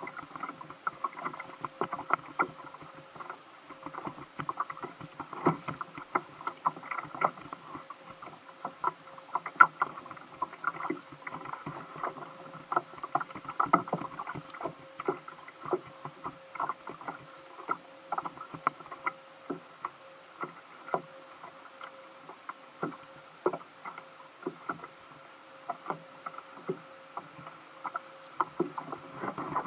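Small waves slapping against a plastic sit-on-top fishing kayak's hull, heard as many irregular taps and knocks, over a faint steady hum.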